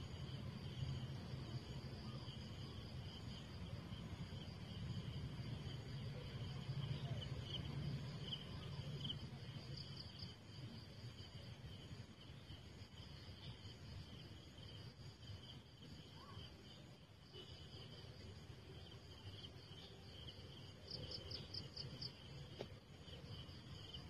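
Steady high-pitched chorus of insects, such as crickets, holding two even pitches, with a brief quick run of chirps near the end. A faint low rumble lies beneath it during the first half.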